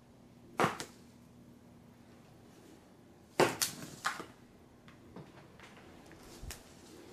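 Sharp knocks or clacks over a low steady hum: two about half a second in, a louder quick cluster of three or four around three and a half seconds in, then a couple of fainter taps near the end.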